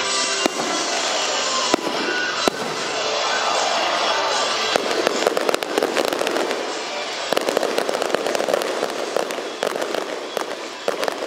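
Aerial fireworks bursting: a few separate bangs in the first few seconds, then from about five seconds in a dense run of crackling reports, with music playing underneath.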